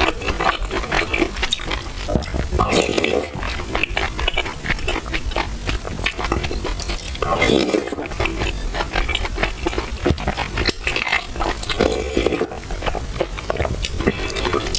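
Close-miked eating sounds: wet chewing of soft, sticky purple rice soaked in milk tea, with many small mouth clicks and a few louder mouth noises every few seconds.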